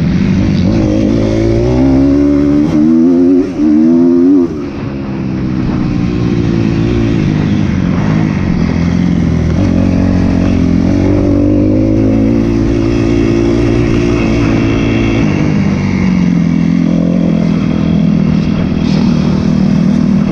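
2012 Kawasaki KX250F's single-cylinder four-stroke engine heard from on board under hard riding: revving up through the gears in the first few seconds, briefly cutting out around three and a half seconds and backing off at about four and a half, then running at a steadier, lower throttle for the rest.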